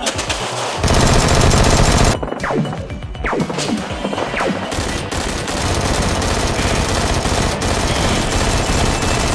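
Automatic gunfire sound effects: a loud burst of rapid fire about a second in, a few falling whistles, then sustained rapid firing from about five seconds on, with music underneath.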